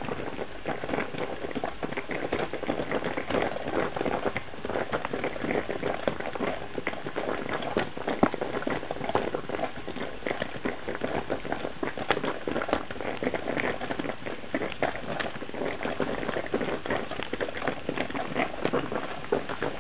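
Metal coffee percolator perking: a steady, irregular bubbling and crackling as the water boils up through the pot.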